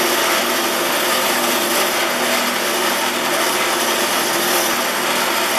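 Wire wheel on a bench grinder spinning against a Stanley bench plane lever cap held to it, a steady scratching hiss over the motor's hum as it scrubs rust and old finish off the underside.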